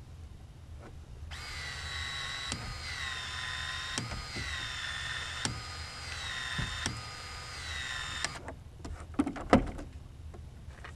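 Power PEX expansion tool expanding the end of a PEX pipe for a fitting: its motor whines for about seven seconds, the pitch sagging under load and recovering in about five strokes, a click at each, roughly one every second and a half. A few sharp knocks follow near the end.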